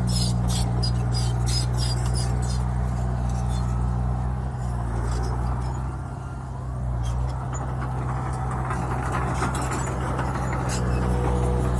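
Heavy diesel engine of an earthmoving machine running steadily, easing off briefly about halfway through, with bursts of sharp clicks over it near the start and again around the middle.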